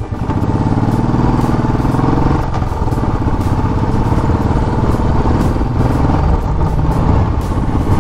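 Royal Enfield Classic 500 single-cylinder motorcycle engine running under way, with a fast, even exhaust pulse. The engine note rises for about two seconds, then drops and runs on steadily.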